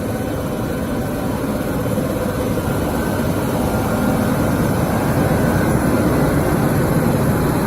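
Steady heavy rumble of a train or locomotive running, with faint steady tones above it, slowly growing louder.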